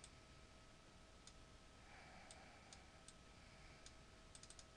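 Near silence with faint, scattered clicks of computer mouse and keyboard use, including a quick run of four near the end, over a faint steady hum.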